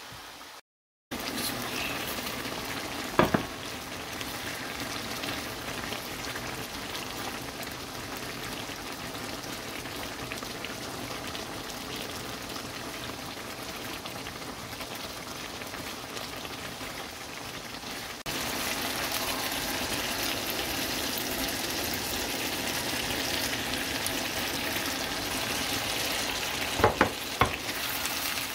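Food sizzling as it fries in a pan, a steady hiss that turns suddenly louder about two-thirds of the way through. A sharp clink of a utensil sounds a few seconds in and twice more near the end.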